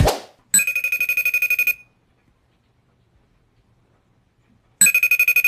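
Alarm clock going off: a second of fast, high-pitched beeping, a pause of about three seconds, then the beeping again near the end.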